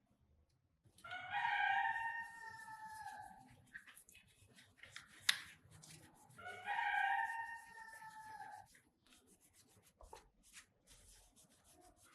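A rooster crows twice, each call about two seconds long, with a single sharp click between the two calls. Light scattered clicks and scraping follow near the end.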